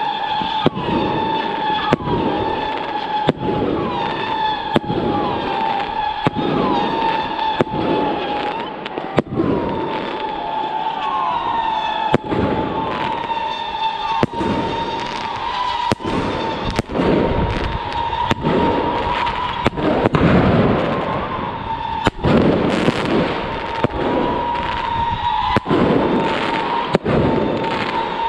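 Fireworks rockets launching and bursting: a string of sharp bangs about once a second, with whooshing launches, over a steady high whistle that runs throughout.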